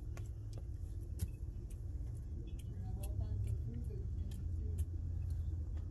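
Light, scattered clicks and ticks from poly irrigation pipe, fittings and pinch clamps being handled in wood mulch, over a steady low outdoor rumble.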